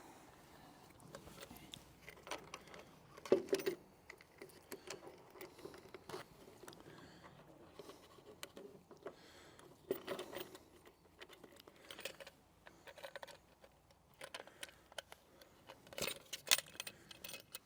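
Scattered light clicks and clinks of small parts being handled and fitted by hand, in small clusters a few seconds apart.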